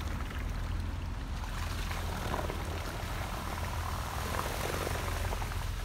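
Small outboard motor on an aluminium jon boat running steadily as the boat pulls away.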